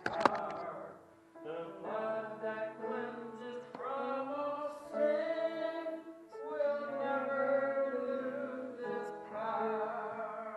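Voices singing a slow hymn in phrases with long held notes. A sharp knock sounds right at the start.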